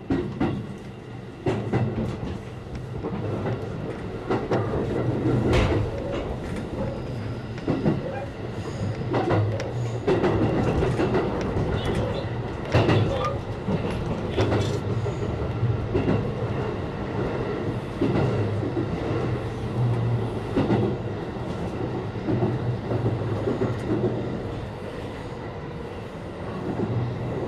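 JR West 223 series electric train pulling away and accelerating. Its wheels clack sharply over points and rail joints, over a steady low running hum.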